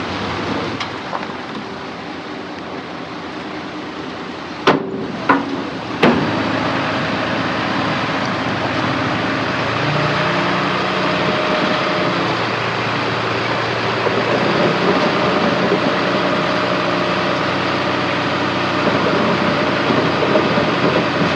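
Diesel engine of heavy earthmoving machinery running steadily under load, with three sharp knocks about five to six seconds in.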